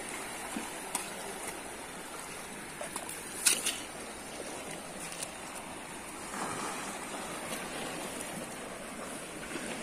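Steady wash of sea water against a rocky shore, with a few short taps, the clearest about three and a half seconds in.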